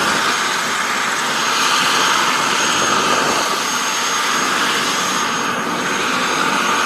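Helicopter running loudly and steadily, a dense engine and rotor noise with a thin high turbine whine over it.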